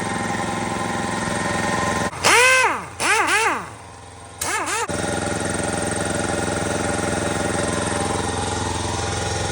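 Snap-on air tool running on compressed air: it is triggered three times about two to five seconds in, its pitch rising and falling each time. A steady mechanical drone runs underneath.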